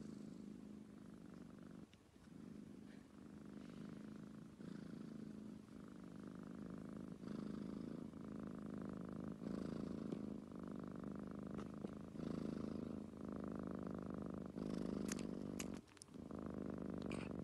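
Tabby cat purring contentedly as its head is stroked. The purr swells and breaks with each breath, about one cycle every second or so.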